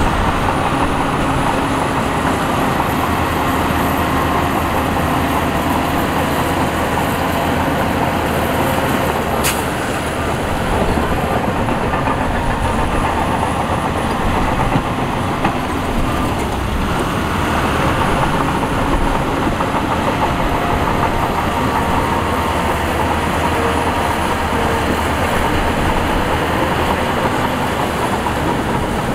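Heavy diesel machinery running steadily and loudly, with a faint high whine that rises and falls and a single sharp click about nine and a half seconds in.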